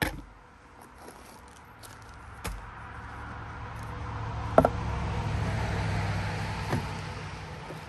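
A passing engine's hum swells and fades over several seconds. Sharp clicks and metal clinks from handling camp-stove cooking gear sound over it, the loudest a ringing clink about halfway through.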